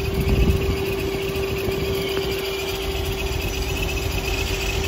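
Modified C7 Corvette V8 idling with the hood open: a steady low rumble with a steady hum held above it.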